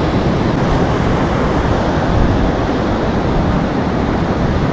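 Steady roar of ocean surf breaking on the beach, mixed with wind buffeting the microphone.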